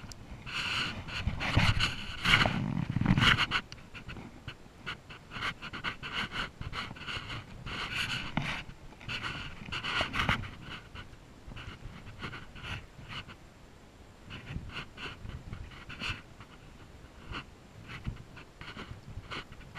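Heavy, irregular panting breaths close to the microphone, loudest a couple of seconds in.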